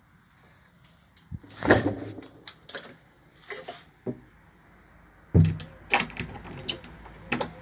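Knocks and clatter of a door being handled, with the loudest bang about five and a half seconds in, followed by lighter clicks and rattles.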